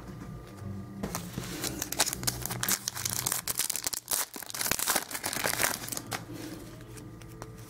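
A trading card pack wrapper being crinkled and torn open by hand, a dense run of sharp crackles that eases off near the end.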